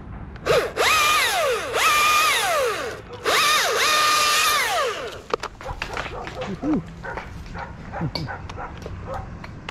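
Chainsaw revved to full speed twice, each burst about two seconds long, rising, holding and falling back. After that it drops back, and scattered clicks and knocks follow.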